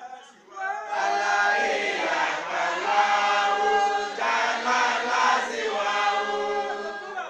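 A congregation of many voices chanting together, holding long sung notes in unison. It breaks off briefly just after the start, then runs on loud and sustained until near the end.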